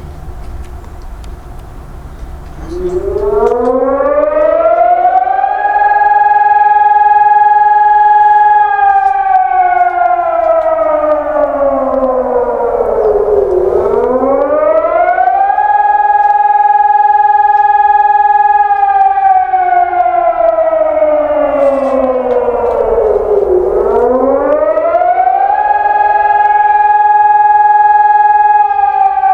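Civil defence siren sounding a test of the German rising-and-falling warning signal. About two and a half seconds in, it winds up to a high held wail, holds it for a few seconds, then slides down before rising again. The cycle repeats about every ten seconds.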